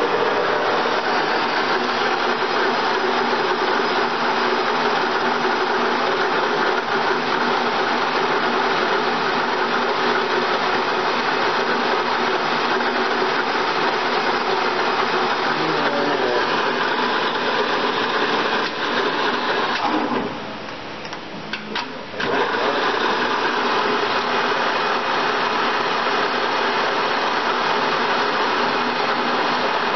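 DoAll Model 16 engine lathe running under power, a steady mechanical running sound from its drive and gearing. The sound drops away for about two seconds about twenty seconds in, then picks up again.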